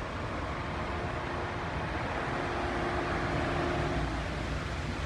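Steady outdoor city noise: a hum of traffic and car engines with a faint steady tone, swelling slightly about halfway through.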